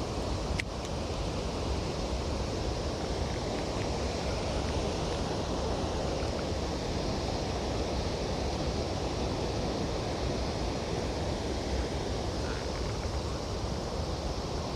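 Mountain stream rushing steadily, with one short click about half a second in.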